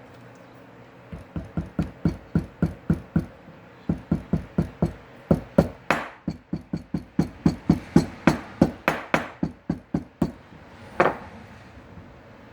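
A quick series of hammer blows, about four a second, with a short pause partway through and one last, harder blow near the end.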